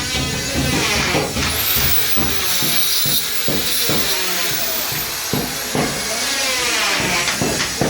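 Workshop noise: a steady hiss with scattered knocks and taps.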